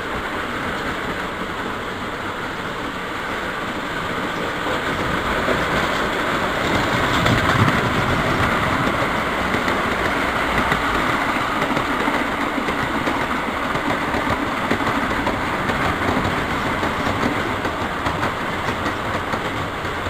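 An O gauge three-rail model train running on the track: a steady rattling clatter of wheels on the rails. It grows louder about a quarter of the way in, then eases off slowly.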